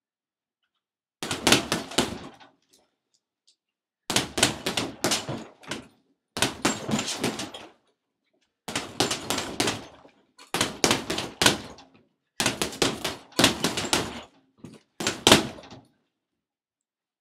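Seven short bursts of rapid knocking, each a cluster of several quick hits lasting about a second, with dead silence between them.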